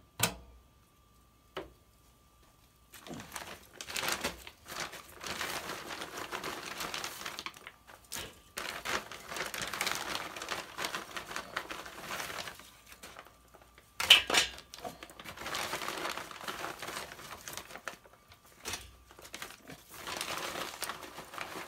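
Plastic bag crinkling and rustling as hands dig through wood chips in it, in long stretches, with a sharp click near the start and a louder one about two-thirds of the way through.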